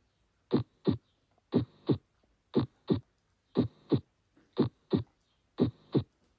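Heart sounds: a steady lub-dub, two beats about a third of a second apart, the pair repeating about once a second.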